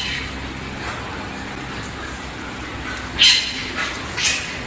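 A steady background hiss, then a dog gives two short, high-pitched yips about a second apart near the end.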